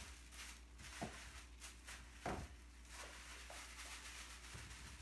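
Faint rustling of tissue paper and light handling as items are lifted out of a wicker basket onto a cardboard box, with two light knocks about a second and two seconds in, over a low steady hum.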